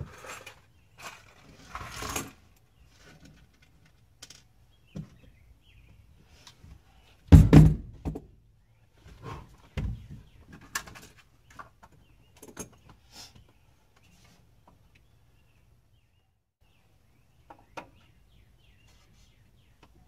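Rummaging through tools and small hard items: scattered clicks, clinks and knocks, with a heavy thump about seven seconds in and a few sharp clinks later on.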